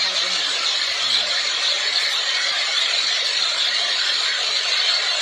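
Homemade helicopter running on the ground with its main and tail rotors spinning: a loud, steady, high-pitched mechanical noise of engine and rotors.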